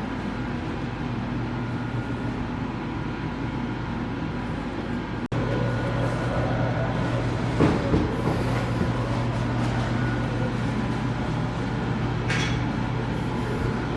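A steady low hum with room noise, broken by a brief dropout about five seconds in, with a few light knocks later on.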